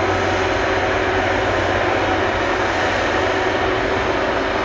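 Airbus Beluga XL's two Rolls-Royce Trent 700 turbofan engines running at low power while the aircraft taxis before take-off: a steady jet engine noise with a few held tones.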